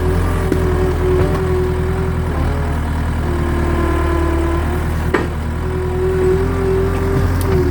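Engine of a machine hauling a log, running steadily with a whine that shifts a little in pitch, and one sharp knock about five seconds in.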